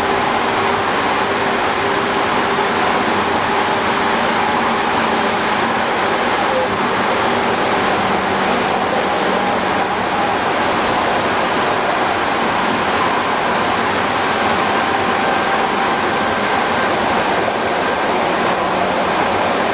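Tokyu 8500 series electric train with Hitachi GTO inverter control, running at a steady speed and heard from inside a car. A loud, even rush of wheel and running noise, with faint steady whining tones over it that shift partway through.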